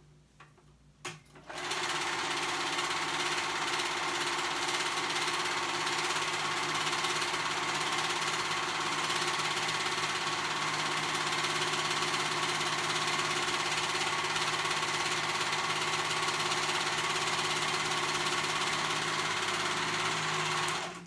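Four-thread serger (overlocker) running steadily as it stitches a seam through knit fabric. It starts about a second and a half in and stops just before the end.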